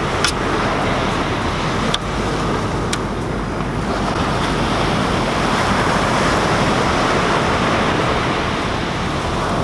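Ocean surf washing onto the beach with wind, a steady rushing noise, and a few light clicks of a knife on a plastic cutting board in the first few seconds.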